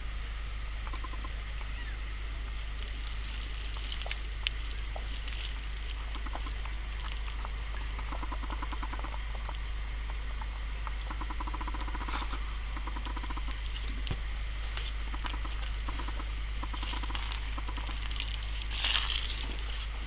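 A woodpecker drumming in several short rolls of rapid, evenly spaced taps, over the steady rush of a shallow creek.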